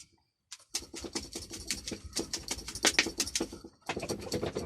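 Jar of powdered sugar rocket fuel mix (potassium nitrate, icing sugar and iron oxide) being shaken to blend it: a fast run of rattling, scratchy strokes, with a brief break near the end.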